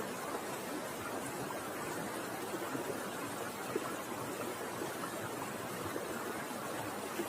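Steady rushing background noise, like running water or hiss, with a few faint ticks; no kingfisher call is heard.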